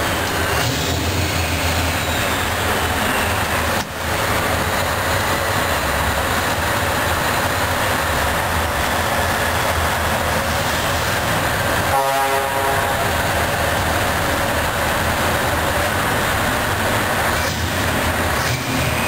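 Scania R560 V8 truck engine running loud and steady, heard from inside the cab in a concrete tunnel, with a brief horn blast about twelve seconds in.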